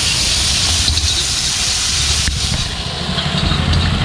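Shredded vegetables sizzling and steaming in a steel wok, the hiss strongest in the first half, over a steady low rumble. A metal spatula knocks against the wok once, a little over two seconds in, with a few lighter ticks of stirring near the end.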